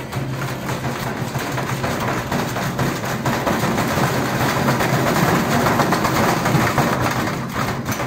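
Indesit front-loading washing machine spinning with a heavy brick loose in its drum: the motor hums steadily under a dense clatter of the brick banging around the drum and the cabinet rattling. It grows louder over the second half.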